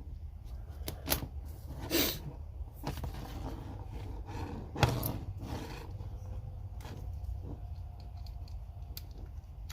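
Scattered clicks and knocks of a Wen belt sander being handled while its pivoting head is adjusted, the loudest knock about five seconds in, over a low steady hum.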